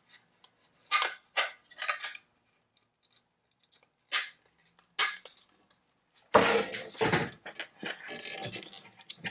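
Aluminium rail and plastic fittings of a Kreg circular-saw guide being handled and fitted together: a few sharp clicks and knocks in the first half, then a longer stretch of clattering from about six seconds in.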